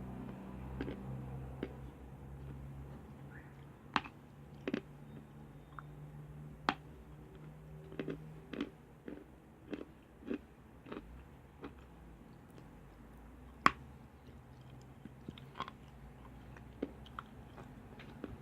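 Lumps of chalk being bitten and chewed, with sharp, irregular crunches, the loudest about 4, 7 and 14 seconds in. A low steady hum sits underneath for the first half.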